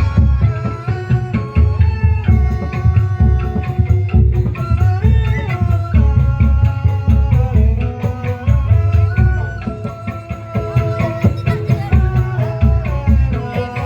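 Upbeat dance music with a steady, heavy hand-drum beat and a melody that slides and bends between notes.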